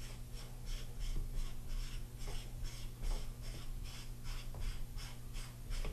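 Aluminium sunshade being unscrewed by hand from a Nightforce riflescope's objective, its threads rasping in a run of short scrapes, about three or four a second.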